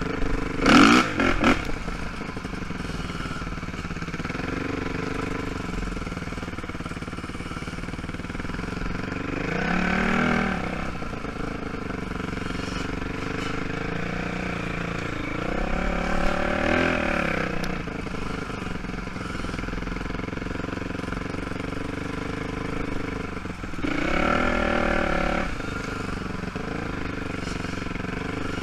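ATV engine running at low trail speed, its pitch rising with brief throttle increases three times, about seven seconds apart. A few loud knocks about a second in.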